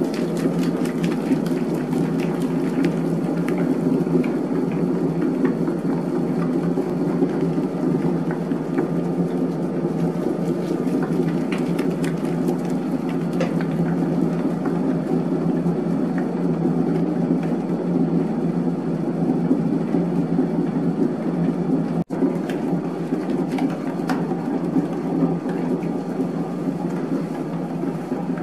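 Electric dough mixer running steadily, its kneading hook turning bread dough in a steel bowl, with a motor hum and scattered light knocks of the dough against the bowl. The dough is in its first kneading with water being worked in, still rough and not yet smooth. The sound cuts out for an instant about three-quarters of the way through.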